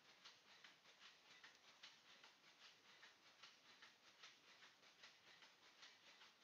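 Near silence with faint, rapid ticking, about four ticks a second.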